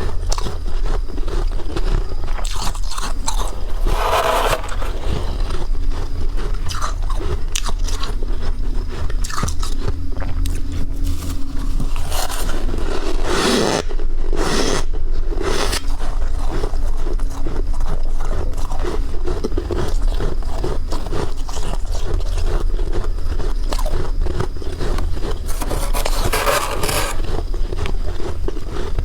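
Close-miked biting and chewing of crunchy freezer ice, a steady stream of crunching with scraping. Louder crunches come about four seconds in, around the middle and near the end.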